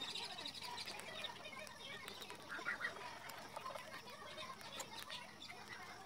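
Faint, busy short chirping calls with scattered clicks, loudest about two and a half seconds in.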